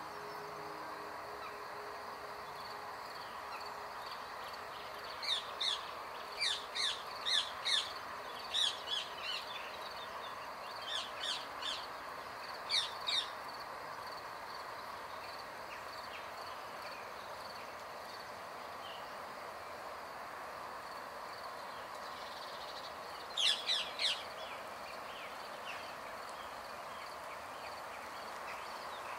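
Rose-ringed parakeets squawking: a rapid series of short, harsh calls about five seconds in, a few more around eleven to thirteen seconds, and a quick cluster of three near the end.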